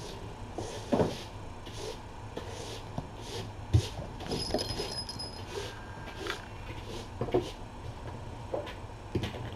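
Hand brush sweeping the floor into a dustpan in short strokes, about two a second, with a few soft knocks, over a steady low hum.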